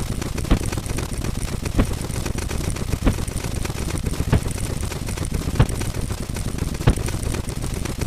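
Steady low mechanical rumble, like a running engine, with a sharp click about every second and a quarter.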